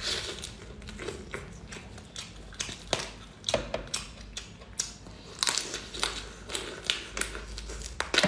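Close-miked biting and crunching on a large cooked mantis shrimp's shell: irregular cracks and crackles as the shell gives under the teeth.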